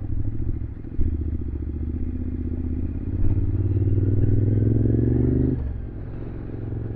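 Motorcycle engine pulling under acceleration, its pitch rising steadily for several seconds, then dropping as the throttle is rolled off about five and a half seconds in.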